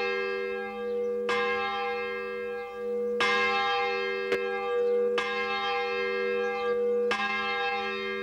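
A large bell hung in a steel frame is swinging, its clapper striking roughly every two seconds. Each stroke sets off a ringing that hangs on with a deep steady hum until the next stroke.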